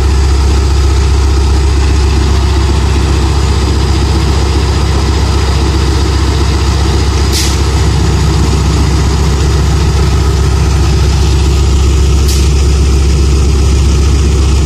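Pakistan Railways ZCU-30 diesel-electric locomotive idling at a standstill: a loud, steady, deep engine hum. Two brief, sharp high hisses come about seven and twelve seconds in.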